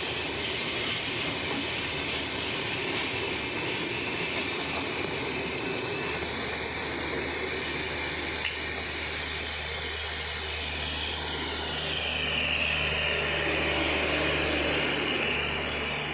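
Express passenger train coaches passing close by at speed, their wheels on the rails making a steady rushing rumble. From about six seconds in, a steady low hum joins it and grows louder as the train's luggage-brake-and-generator car, with its onboard diesel generator, draws level near the end.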